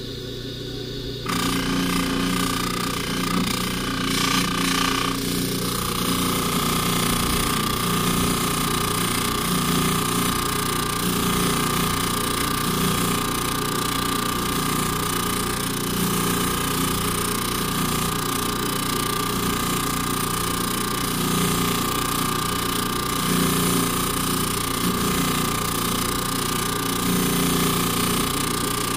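Jeweller's polishing motor switched on about a second in, then running steadily with a held whine while a gold necklace chain is buffed against the wheel.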